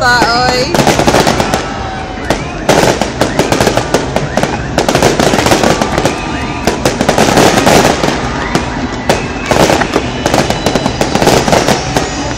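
Aerial fireworks bursting in quick succession, with dense crackling from the stars, coming in several waves with short lulls between.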